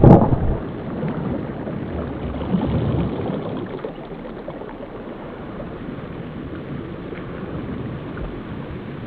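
Muffled water sound, as heard from underwater: a rush of water at the start that settles into a steady, dull wash.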